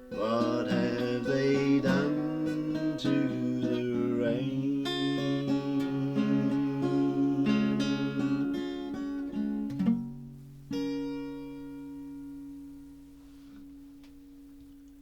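Acoustic guitar picking the closing bars of a song, ending about eleven seconds in on a final chord that rings out and fades.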